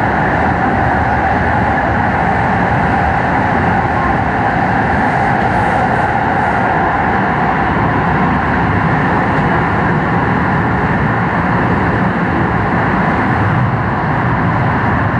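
Keio 8000 series electric commuter train running steadily along the line: a constant, loud rolling noise of the train on the rails with a steady hum in the middle of the range.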